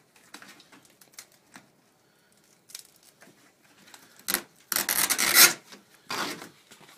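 Pliers gripping and working at the wooden stem of an old canoe, metal scraping on wood: a few small clicks, then three loud rasping scrapes in the second half, the middle one lasting about a second.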